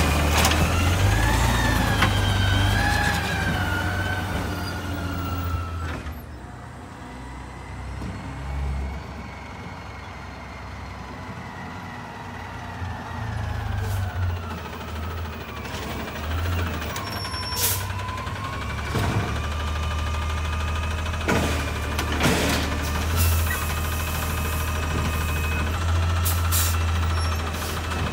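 Natural-gas side-loading recycling truck at work: the engine revs with a rising and falling whine while the hydraulic arm works. After a quieter stretch the truck's engine grows louder as it pulls up, with a few sharp clanks.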